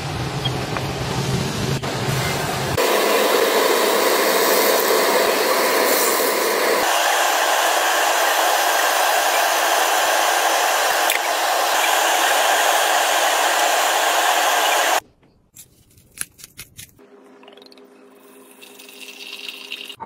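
Food sizzling in a cast iron skillet, a loud steady hiss that stops abruptly about fifteen seconds in, followed by a few faint clicks and taps.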